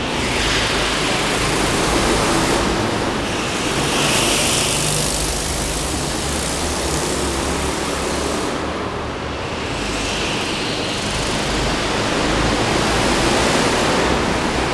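Go-kart engines running out of sight on an indoor track: a loud, steady noise that swells and fades.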